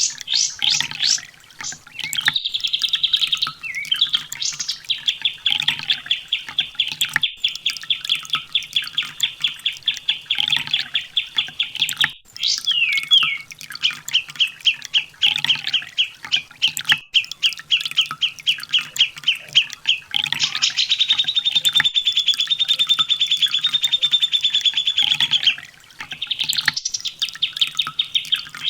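Sunbird (kolibri ninja) singing long, fast trills of rapidly repeated high chirps, breaking off briefly a few times and starting again.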